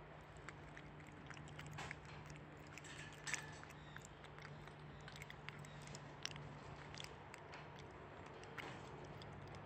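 A white-handed gibbon making faint chewing and mouth clicks close to the microphone, over a low steady hum.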